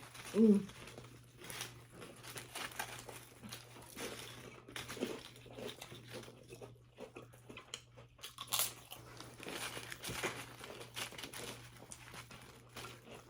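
Food packaging crinkling and rustling in irregular bursts, with scattered crunches of eating; a short hummed vocal sound about half a second in.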